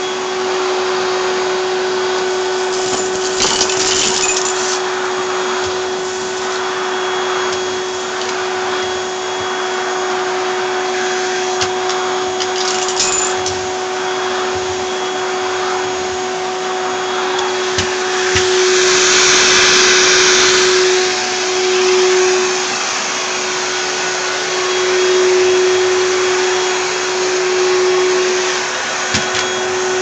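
Hoover Celebrity vacuum cleaner running steadily, a constant motor whine over the rush of air as its floor tool is pushed over carpet. The sound swells louder and hissier for a couple of seconds just past the middle, with a few brief crackles here and there.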